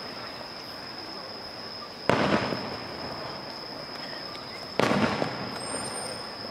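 Fireworks shells bursting: two loud booms about two and a half seconds apart, each dying away in a short echoing tail, over a steady high-pitched tone.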